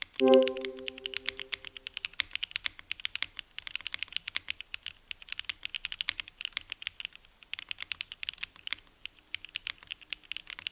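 Fast typing on a QK Cub65 aluminium 65% keyboard built without foam, with lubed Namazu switches: a rapid, steady stream of keystroke clacks. Just after it starts, a short ringing tone fades out over about two seconds.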